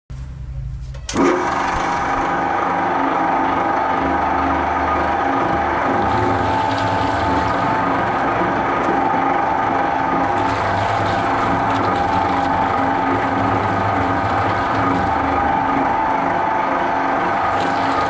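Twin-shaft shredder running: a steady motor-and-gearbox whine over the grinding of its toothed rotors, coming in abruptly about a second in.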